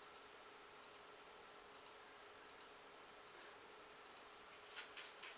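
Near silence: room tone with a faint steady hum, and a few brief clicks near the end.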